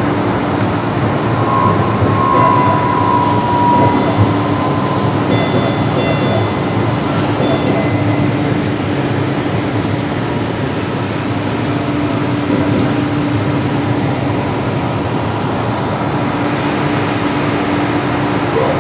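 Inside a DART Kinki Sharyo light rail train running along the line: a steady rumble with a constant hum, and a thin high squeal that falls slightly in pitch from about a second and a half to four seconds in.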